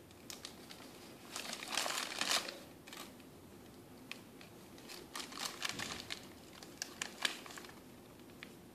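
Magazine and advertising flyer pages crinkling and crackling as a baby's hands crumple and pull at them. The loudest burst comes about a second and a half in, followed by scattered crackles around five to seven seconds in.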